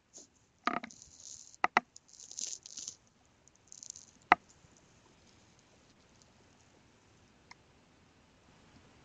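Stylus nib scratching in short strokes across a Wacom pen display's surface, with several sharp taps of the pen in the first half, the loudest about four seconds in.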